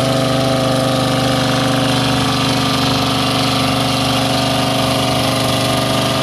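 Ford pickup truck's engine running at steady high revs under heavy load as it drags a weight-transfer sled in a truck pull.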